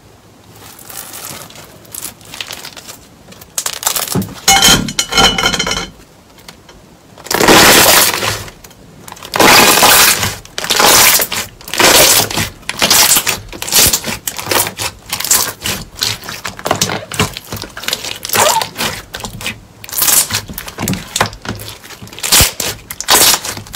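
Clear purple glitter slime being stretched and then squeezed and kneaded by hand, giving sharp, wet squelching crackles. They come about once a second from around seven seconds in, with fainter stretching sounds before that.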